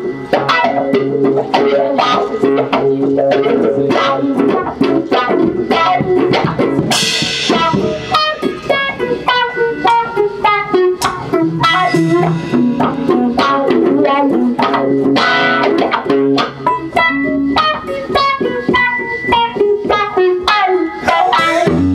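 Live band music led by a Telecaster-style electric guitar playing quick, busy runs of notes.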